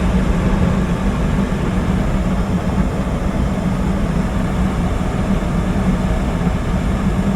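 Gas furnace running steadily after lighting on its newly installed White-Rodgers gas valve: a constant rushing sound with a low steady hum, the burners staying lit, which shows the replaced valve is working.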